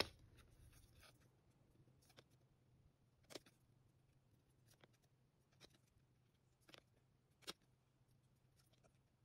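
Near silence, with a handful of faint, sharp clicks and rustles of glossy photocards being slid and flipped through by hand, the clearest about a third of the way in and near the end.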